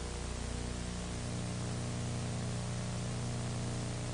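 Steady hiss with a low electrical hum, and no other sound.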